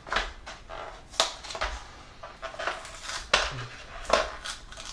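Irregular crackling, rustling and tapping of a model kit's cardboard and plastic packaging being handled and opened by hand.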